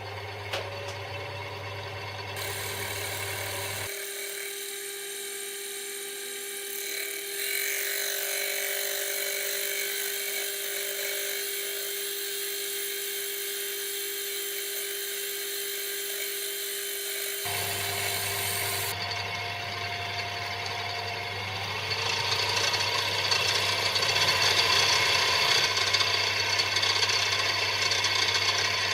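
Metal lathe running, facing a part bolted to its faceplate. There is a steady motor hum, and the cutting noise becomes louder and harsher about three-quarters of the way through.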